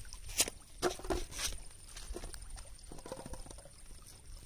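Footsteps on lakeshore stones: several sharp clicks and knocks in the first second and a half, over a faint lapping of water.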